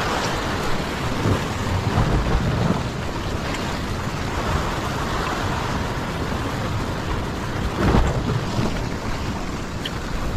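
Sea swell washing and foaming against a rock ledge, mixed with wind rumbling on the microphone. There are louder surges about two and eight seconds in.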